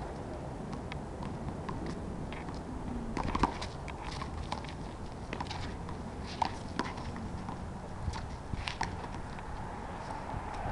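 Handball rally: a series of sharp smacks as the small rubber ball is struck by hand and rebounds off the concrete wall, with sneakers scuffing on the asphalt, over a steady low background noise. The loudest smack comes about three and a half seconds in.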